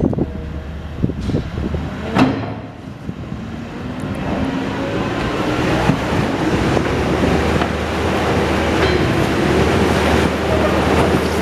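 Engine of a heavy demolition machine running under load, with sharp knocks about one and two seconds in, then a steady drone that grows louder with a slowly rising whine.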